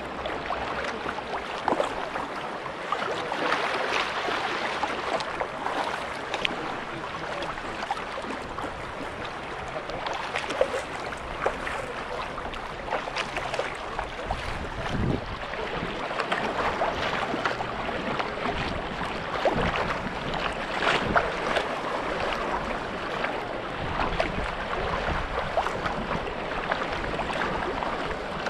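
Sea kayak being paddled through calm sea water: the paddle blades dip and splash with each stroke, water drips off them, and small ripples lap against the hull.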